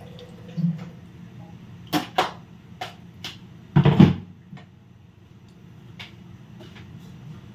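A few sharp clicks and knocks, the loudest a thump about four seconds in, over a low steady hum.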